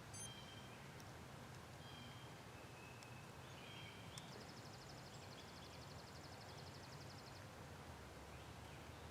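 Quiet woodland background with faint songbird calls: a few short chirps, then a rapid high trill lasting about three seconds from around the middle.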